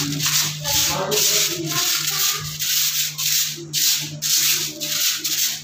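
A soft grass broom (jhaadu) sweeping litter and wrappers across a concrete floor, in quick brushing strokes about twice a second. A steady low hum runs underneath.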